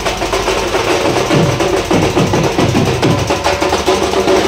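Street procession band playing, with loud, steady drumming and held notes above it.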